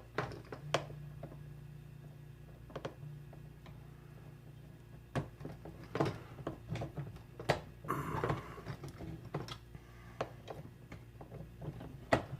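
Scattered clicks and taps of hand tools working small screws, with a hand screwdriver and Torx bit fastening a fuel pump sending unit to a gas tank, over a steady low hum.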